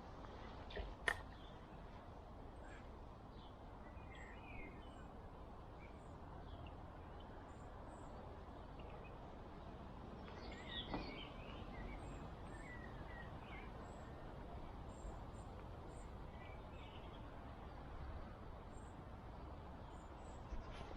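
Quiet outdoor background with small birds chirping now and then in short high calls. There is a single sharp click about a second in.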